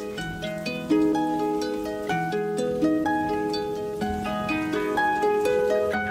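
Background music: a quick melody of plucked-string notes over held low notes.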